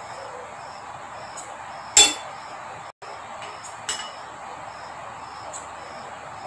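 A metal spoon clinking against the dishes while ghee is spooned into a glass bowl: one sharp clink about two seconds in and a softer one near four seconds. A faint high chirp repeats about twice a second in the background.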